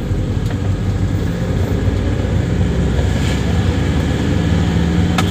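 Isuzu Crosswind running steadily in gear as its freshly overhauled manual transmission is road-tested, a continuous low engine and drivetrain rumble. A single sharp click comes near the end.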